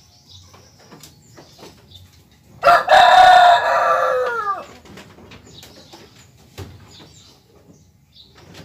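A rooster crowing once, a call of about two seconds whose pitch falls away at the end.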